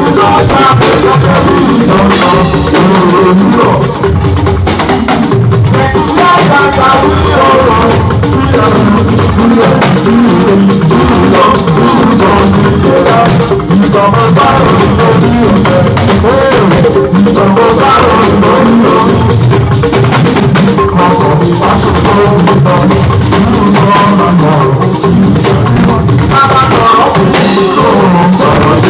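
Loud music with a drum kit, shakers and other percussion, and singing.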